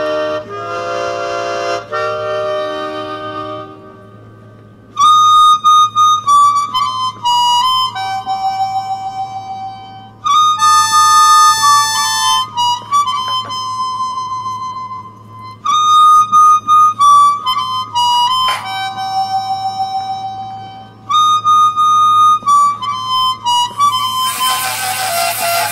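Solo harmonica tune: a few seconds of chords, then single held notes in melodic phrases. Near the end a harsh hiss joins in as a handmade rotary tool grinds a brass harmonica reed.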